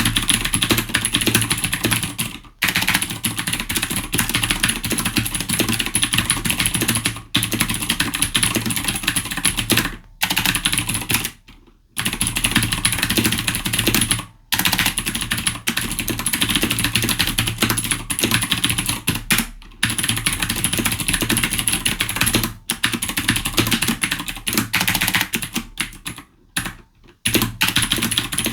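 Fast, continuous typing on an ASUS ROG Strix Scope PBT mechanical gaming keyboard with PBT keycaps: a dense stream of key clacks, broken by short pauses several times.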